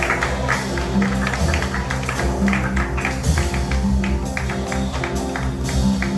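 Jazz quartet of trumpet, piano, double bass and drum kit playing live. Quick drum strokes run under held pitched notes.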